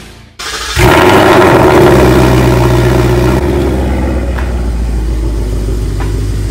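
2019 Ford Mustang GT's 5.0-litre V8 starting up, flaring loudly as it catches, then easing down over a couple of seconds into a steady idle.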